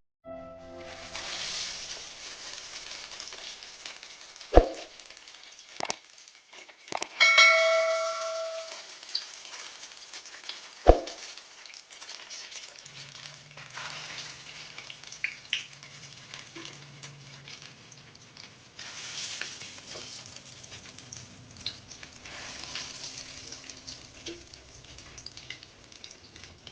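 Kitchen cooking sounds: a faint steady sizzle of frying, broken by a few sharp knocks. About seven seconds in, a metal pan or pot rings out when struck. A low hum comes in about halfway through.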